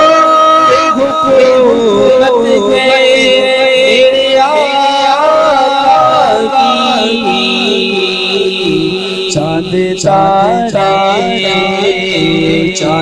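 A man's voice sings an Urdu naat unaccompanied, holding long ornamented notes that waver up and down, under a heavy echo effect. From about halfway through, a steady low drone sounds beneath the voice.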